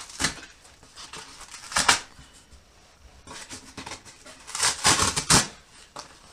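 Short rustling and scraping noises from paper and kindling being handled at a stove's firebox as the fire is lit: one at the start, one about two seconds in, and a longer cluster about five seconds in.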